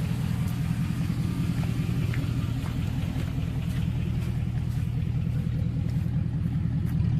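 A 2003 Chevrolet Avalanche's engine idling steadily.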